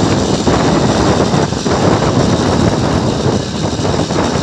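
Motorized bicycle's small engine running steadily under way, mixed with wind buffeting the microphone and the rattle of the ride.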